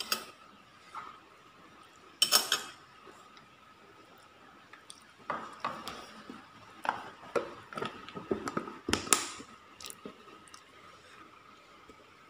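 Metal spoons clinking against a ceramic bowl and plate. There is a sharp clatter about two seconds in, then a run of clinks and knocks from about five to nine seconds in.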